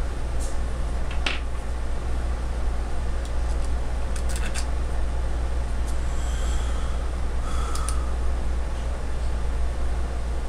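Steady low hum of room background noise, with a few faint light clicks as a hex key and metal parts are handled on a pneumatic spool valve block.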